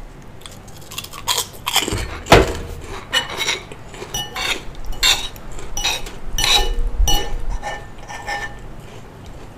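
Metal spoon and fork clinking and scraping against a bowl of rice: a run of sharp clinks, many with a brief ring, and one louder knock about two seconds in.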